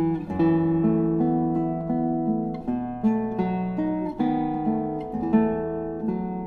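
Background music of acoustic guitar playing slow arpeggiated chords, each plucked note ringing on.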